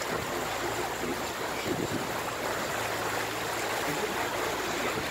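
Steady rush of water along the hull of a river cruise boat under way, with a low, even hum from the boat's engine.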